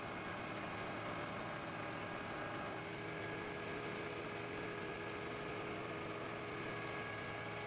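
Mack vacuum sewer truck running steadily: a continuous hum with several faint, steady whining tones over it.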